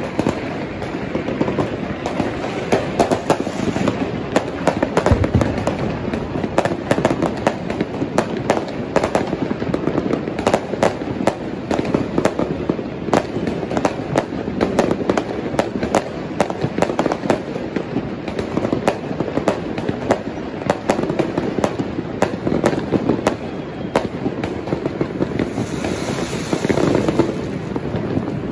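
Many fireworks and firecrackers going off at once: a dense, unbroken run of sharp cracks and pops.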